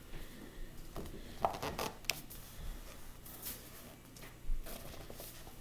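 Soft paper rustling and brushing as a hand moves over the open pages of a large coloring book, in a few brief scrapes and light taps.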